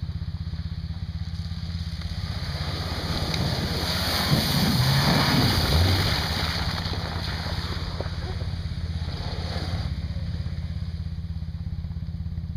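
Off-road buggy engine driving past close, its tyres churning through snow and gravel. It swells to its loudest about four to six seconds in, with the engine pitch falling as it passes, over a steady low engine hum.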